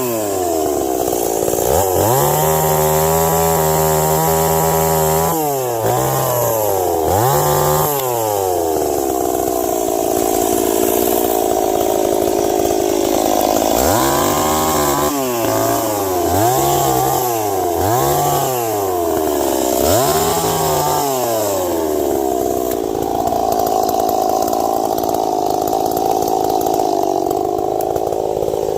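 Ported Stihl 026 two-stroke chainsaw revving up and dropping back again and again, held at high revs for a few seconds near the start, then running steadily at high revs through the last several seconds.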